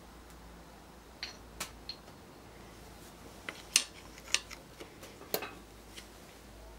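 Scattered light metallic clinks and taps as hand tools and bearing parts knock against the crankshaft and main bearing caps of a Daewoo Lanos engine block during teardown. The sharpest clink comes near the middle.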